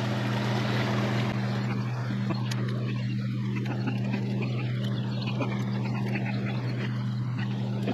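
A steady low mechanical hum over a constant rushing noise, with a few faint clicks.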